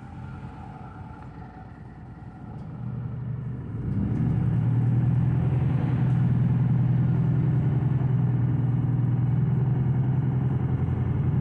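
City bus engine heard from inside the cabin: a low background rumble at first, then about three to four seconds in the engine noise grows much louder and holds a steady low hum.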